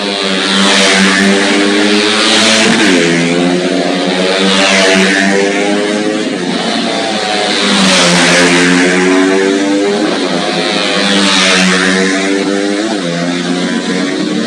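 Racing motorcycle engines running at high revs, several bikes passing one after another, with the pitch stepping up and down every few seconds.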